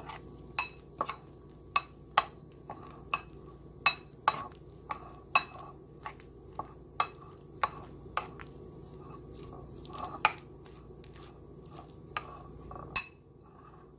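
Metal spoon stirring finger millet flour into boiling water in a bowl, clinking and scraping against the bowl about one to two times a second, and stopping about a second before the end.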